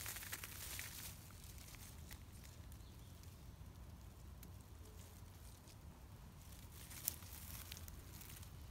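Faint rustling and crackling of grass and leaves as a gloved hand pushes the weeds aside, over a steady low rumble. There is a single sharp click about seven seconds in.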